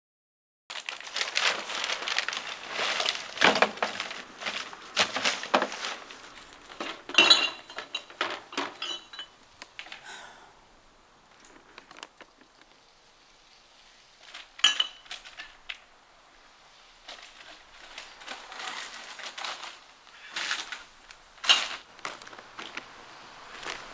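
Bottles and containers clinking and rattling as they are rummaged out of recycling bins: dense clatter for about the first ten seconds, then quieter, with a few sharp clinks near the end.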